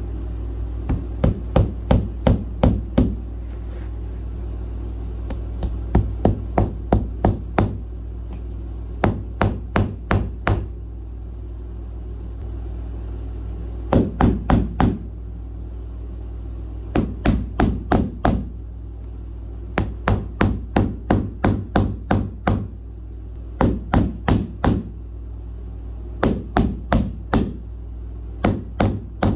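Hammer driving nails into wooden baseboard trim, in quick runs of five to eight blows with pauses between runs, over a steady low hum.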